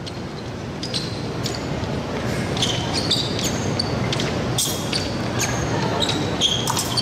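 Fencers' shoes squeaking on the piste during footwork: many short, high squeaks coming thick and fast from about a second in, over a low murmur of the hall.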